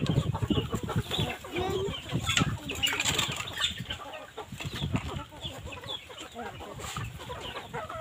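A flock of chickens clucking and calling as they feed, many short overlapping calls at once.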